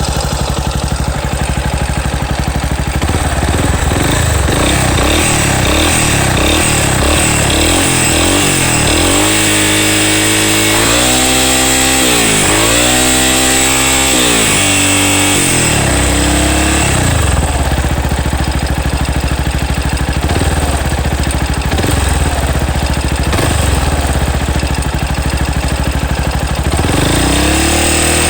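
Yamaha Lander 250 motorcycle's single-cylinder four-stroke engine running, idling with a few blips of the throttle about a third to halfway in and another near the end. The engine has an abnormal noise.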